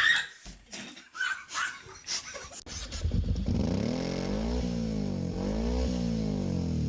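A few short scattered noises, then from about three seconds in an engine starts running loudly and revs up and down several times.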